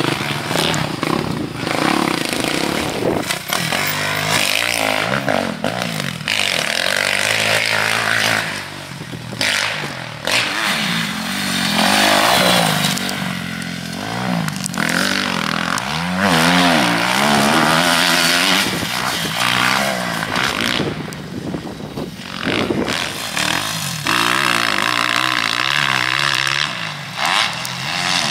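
Motocross bike engine revving up and backing off again and again, its pitch rising and falling every second or two.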